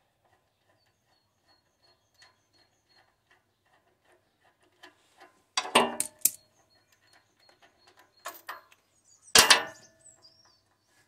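A socket ratchet clicking in quick, even ticks as the spark plug is unscrewed from a Honda GX390 engine, then loud metal clanks with a short ringing tone, about six seconds in and again near the end.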